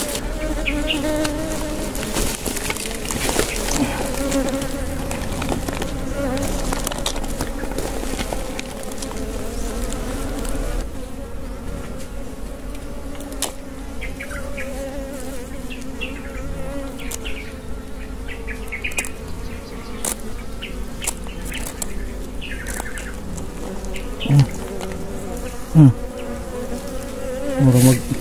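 Wild honeybees buzzing around their opened nest, a steady wavering drone. During the first ten seconds or so there is rustling and scratching of soil and debris being cleared, and near the end a few bees zip close past the microphone with brief, louder rising buzzes.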